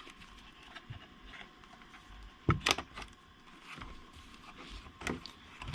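Putty knife prying at the plastic tabs of a Mac Mini G4 case: scattered light clicks and scrapes as the tabs come free, with the loudest snap about two and a half seconds in and another about five seconds in.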